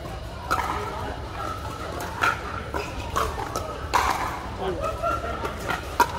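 Pickleball rally: paddles striking the hard plastic ball in several sharp pops, one to two seconds apart.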